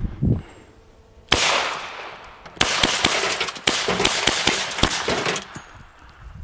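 BinTac T9 .357/9mm big-bore semi-auto PCP air pistol firing: a single shot about a second in, then a quick string of shots fired as fast as the trigger can be pulled, ending about five seconds in.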